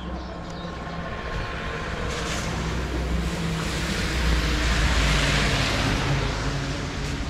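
A motor vehicle passing close by: engine hum and road noise swell to a peak about four to six seconds in, then ease off.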